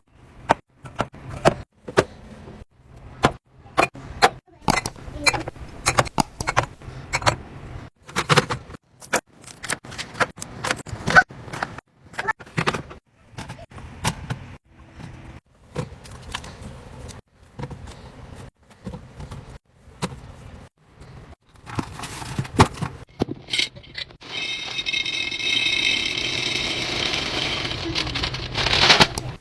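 Plastic containers, jars and bottles clicking, knocking and rattling as they are handled and set down on fridge shelves, with lids snapping shut. Near the end a steady hiss with a faint ringing tone runs for about five seconds.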